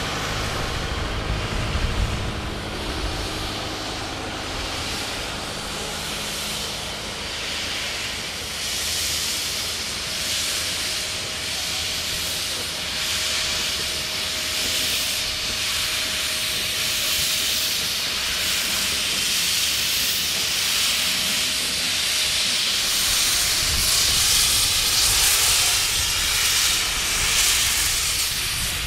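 Steam locomotive D3 639, a 4-6-0, blowing off steam in a loud, sustained hiss that pulses unevenly. A low running rumble from the train fades out over the first several seconds.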